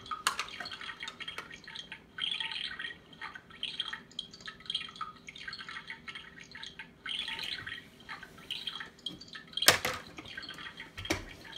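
Electronic sizzling sound effect from a toy stove, coming in short crackly bursts over and over, with one sharp plastic knock about ten seconds in.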